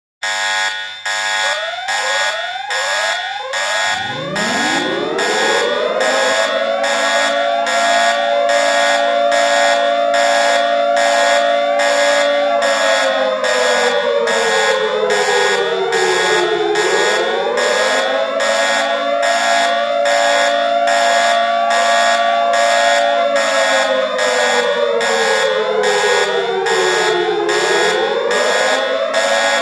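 Emergency alert alarm: a loud, rapidly repeating electronic beep pattern with quick rising chirps. About four seconds in, a siren winds up and holds a steady pitch, then twice slowly falls and winds up again.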